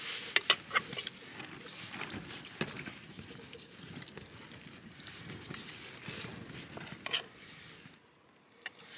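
Mealtime handling sounds: a steel spoon clinking and scraping in a steel bowl of paneer curry while hands tear roti. There are a few sharp clicks in the first second, then softer scattered taps and rustles, and the sound cuts out briefly near the end.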